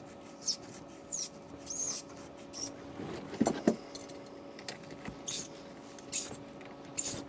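Pliers working on electrical wire, stripping or shaping it where a dedicated tool would normally be used: scattered short squeaky scrapes, with a few sharper clicks about halfway through, over a steady low hum.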